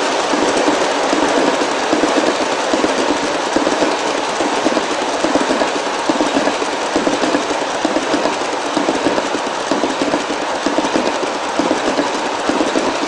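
G-scale model refrigerator cars rolling past on track, their wheels making a steady, dense, rapid clicking clatter.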